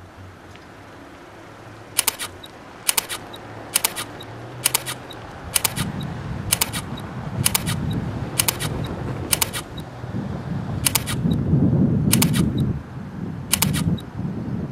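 Camera shutter clicks, about one a second, each a quick double click. Under them is a low rumble that grows louder from about six seconds in.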